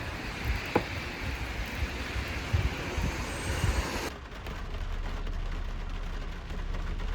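Rain falling, with a few dull knocks and a short squeak about a second in. About four seconds in, the rain hiss cuts off abruptly and a steady low hum of a car engine remains, heard from inside the car.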